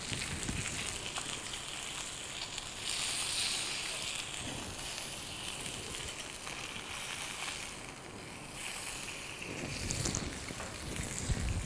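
Salmon portions sizzling on a hot ridged grill pan, a steady hiss that swells about three seconds in while the pieces are turned to mark a criss-cross grid.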